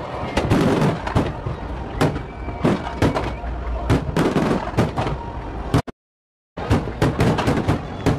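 Aerial fireworks bursting overhead, a rapid, uneven run of bangs and crackles over a low rumble. The sound drops out completely for about half a second just before six seconds in.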